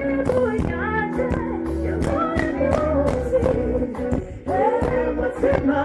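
Live pop music with singing over a steady beat, bass and guitar.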